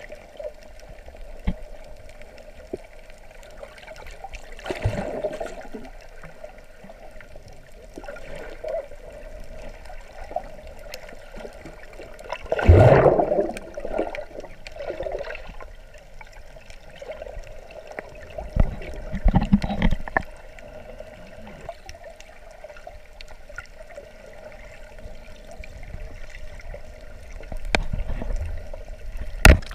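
Muffled underwater water sounds picked up by a camera in its waterproof housing: swishing and gurgling water over a steady hum, with a few louder gurgling surges, the biggest about halfway through.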